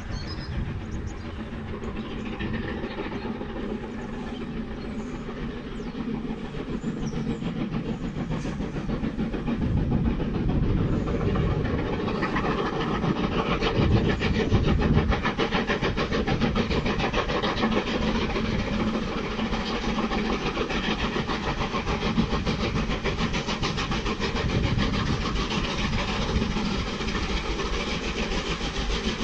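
USATC S160 2-8-0 steam locomotive working an approaching train, its exhaust beating rapidly and steadily with a hiss of steam. It grows louder over the first ten seconds or so as it nears, then holds.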